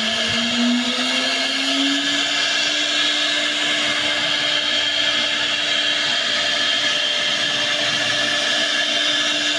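CNC router spindle whine rising in pitch over the first two seconds as the spindle reaches its set speed of 18,000 rpm, then holding steady while the router cuts a circle into a board 5 mm deep.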